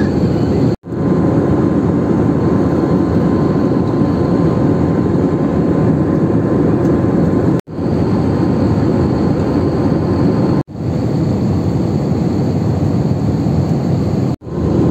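Steady roar of a jet airliner's engines and slipstream heard inside the passenger cabin in cruise. It cuts out abruptly four times for an instant and fades back in each time.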